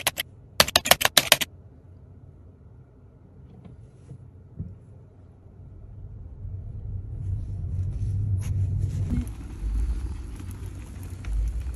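A quick run of keyboard-typing clicks, a sound effect for on-screen text being typed, followed by the low steady rumble of a car interior. From about six seconds in a louder low rumble with occasional clatter builds: pet-stroller wheels rolling over paving tiles.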